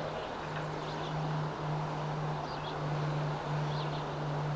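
Steady rush of a shallow river flowing around the wading angler, under a steady low hum that drops out briefly a few times. Faint short bird chirps come through now and then.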